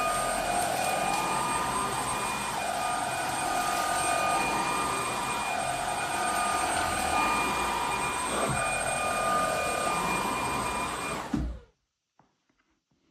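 SilverCrest SHAZ 20 A1 20 V cordless cyclonic vacuum cleaner running, its motor whine wavering up and down in pitch. Near the end there is a short knock, and then it switches off and stops suddenly.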